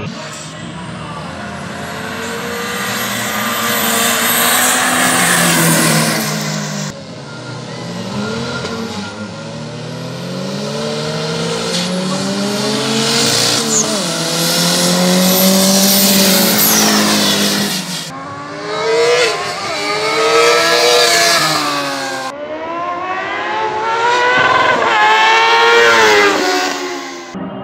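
Drag-racing vehicles accelerating hard in several edited-together runs, their engines climbing in pitch and dropping back at each gear change, with abrupt cuts between runs. In the last few seconds, two motorcycles launch side by side and rev up through the gears.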